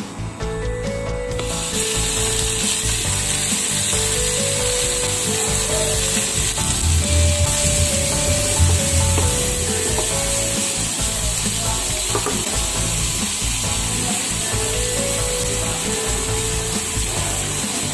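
Cubes of tuna steak frying in hot oil and butter in a nonstick wok: a steady sizzle that starts up about a second and a half in, as the fish goes into the pan.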